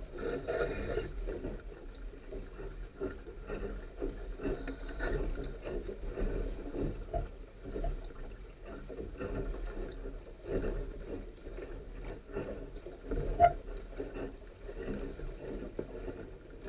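Water slapping and rushing along the hull of a Sunfish sailboat under sail, in uneven surges, over a steady low wind rumble. One sharp knock about three-quarters of the way through.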